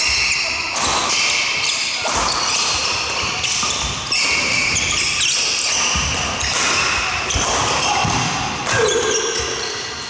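Badminton doubles rally: sharp racket hits on the shuttlecock every second or two, mixed with players' footfalls and shoes squeaking on the wooden court floor, echoing in a large hall.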